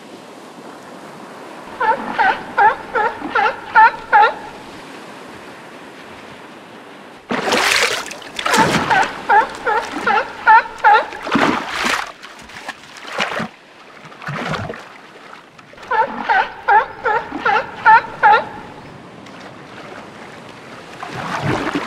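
Seal barking: three bouts of quick, evenly repeated short barks, about three a second, with water splashing between the second and third bouts.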